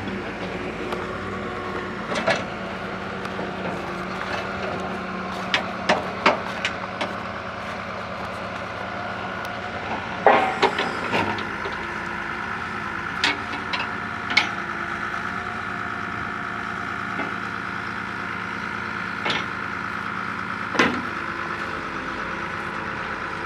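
Truck-mounted borewell drilling rig running steadily, a machine hum with a steady whine, broken by a dozen or so short sharp knocks.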